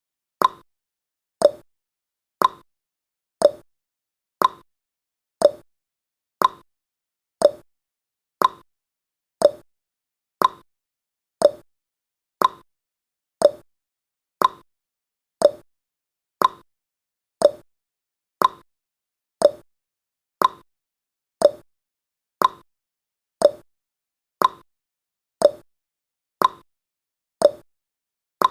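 Clock-style tick-tock sound effect of a countdown timer: one short, sharp tick every second, alternating between a higher and a lower tick.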